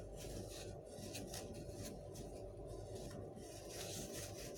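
Faint soft rubbing and rustling, short scattered scrapes over a steady low hum.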